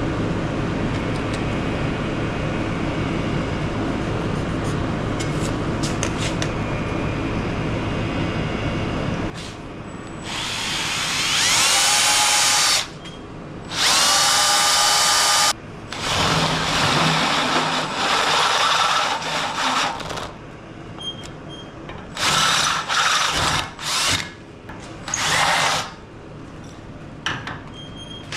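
Cordless drill boring a half-inch hole through a forged steel bumper bracket clamped in a bench vise. It runs in two long stretches, the motor whine rising as it spins up, then in several shorter bursts. A steady hum fills the first nine seconds, before the drilling starts.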